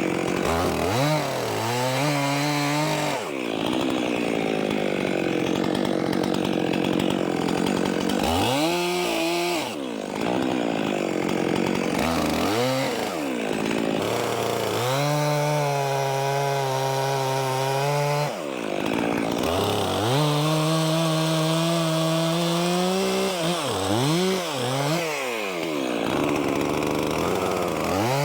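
Stihl 400c two-stroke chainsaw bucking logs. The engine revs rise and fall over and over as it is run between cuts and loaded in the wood, with stretches of steady full-throttle cutting noise.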